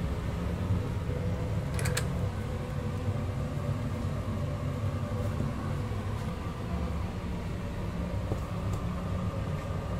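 Steady low rumble of kitchen machinery, with two light clicks about two seconds in.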